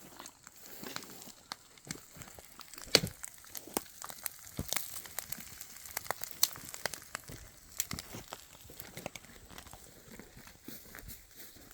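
Campfire crackling: irregular sharp snaps and pops, with one louder snap about three seconds in.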